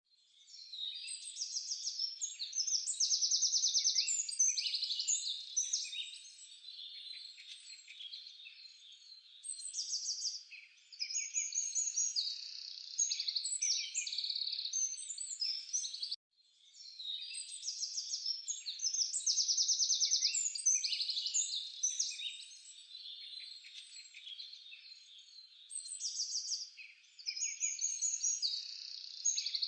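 Birds chirping and trilling in a dense, busy chorus. The sound cuts out briefly about sixteen seconds in and then repeats the same passage, like a looped birdsong track.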